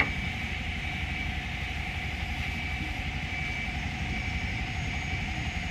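Auto-rickshaw engine idling steadily, a low, even rumble, with one sharp click right at the start.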